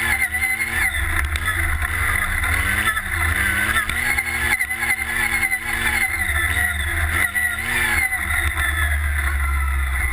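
Redline Revolt off-road buggy's engine running under way, its revs rising and falling over and over with the throttle, over a steady low rumble.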